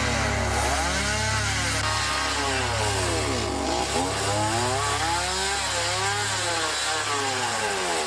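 Two-stroke chainsaw cutting into a wooden carving block. Its engine revs up and down over and over as the throttle is worked, rising and falling in pitch about once a second.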